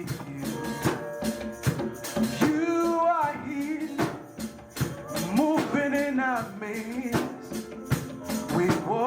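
Live church praise music: a steady percussion beat with a voice or lead line gliding over it in phrases, with no recognisable words.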